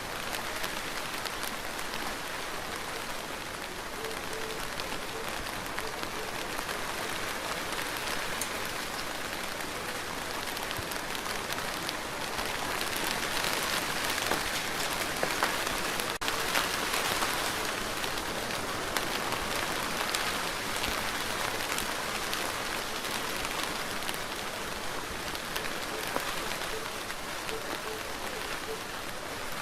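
Steady rain falling, a dense hiss with individual drops ticking through it; it swells a little louder midway.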